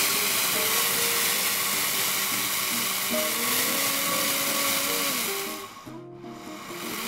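Nutrimix high-speed blender running with its dry container, grinding dry rice into flour with a steady whir. The noise drops away briefly about six seconds in, then picks up again.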